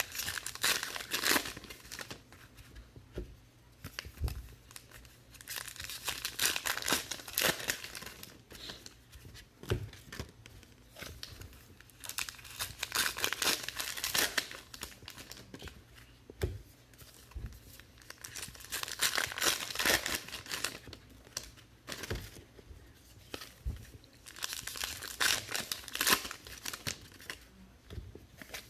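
Trading card pack wrappers being torn open and crumpled, in about five bursts of crinkling a few seconds apart, with light taps from cards being handled in between.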